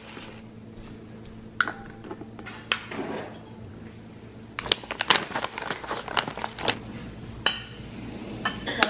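Metal spoon clinking and scraping against a ceramic bowl as yogurt is scooped in and stirred. A couple of single clinks come in the first few seconds, then a quick run of clinks about halfway through, over a faint steady hum.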